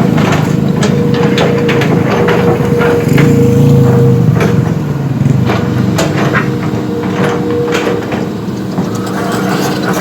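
Heavy diesel machinery running, its engine drone carrying a steady whine, with irregular sharp knocks and clatter several times a second.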